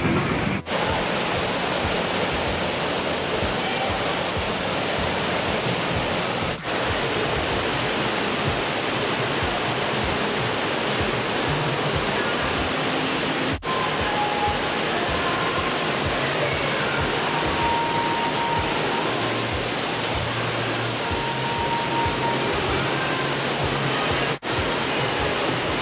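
Steady, loud rush of pumped water from an indoor surfing wave machine, a sheet of water running over the ride surface. It is broken by brief dropouts four times.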